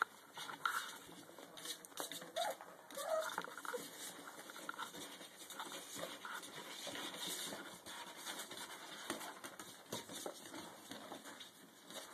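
Puppies giving a few short, faint squeaks and whimpers over a soft, steady patter of small clicks and shuffling, the restless noise of hungry puppies.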